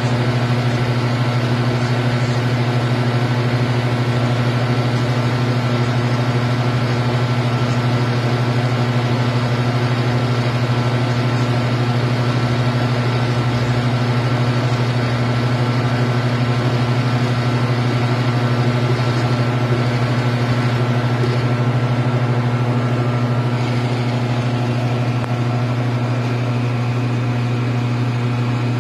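Creality Ender 3D printer running mid-print: a steady mechanical hum from its fans and motors as the print head lays down the part. It is slightly quieter from about three-quarters of the way through.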